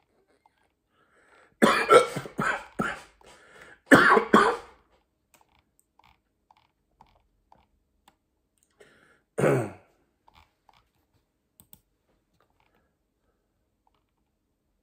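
A person coughing in short throaty bursts. There is a quick run of about five coughs, then two more, and a single one near the middle. The person has the hiccups.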